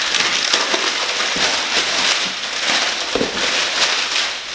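Packaging crinkling and crackling densely and continuously as it is handled and torn open.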